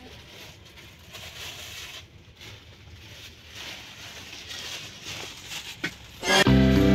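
Faint background noise with a few soft knocks, then loud background music cuts in suddenly near the end.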